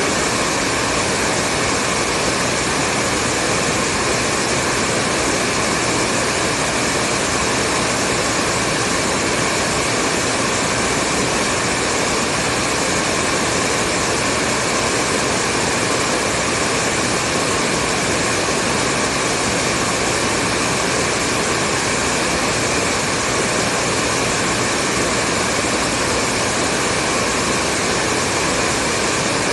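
Hair dryer running steadily: a constant blowing whoosh with a faint motor hum and no change in speed.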